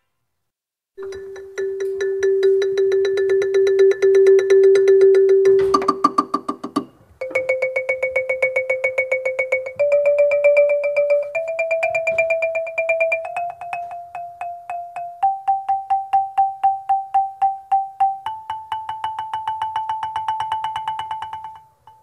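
Xylophone rolls played with rubber mallets. A rapid tremolo on one low note is followed about six seconds in by a short roll higher up, then six rolled notes, each held a couple of seconds, that climb step by step up the scale.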